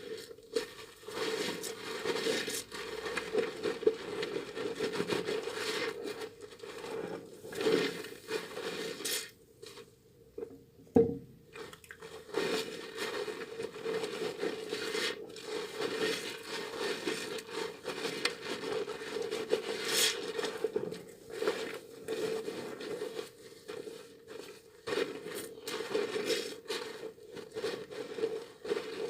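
Wet, softened bar of tar soap being rubbed and lathered between hands, with irregular squishing, scraping and crackling. The rubbing stops briefly about a third of the way through and resumes after a single sharp click.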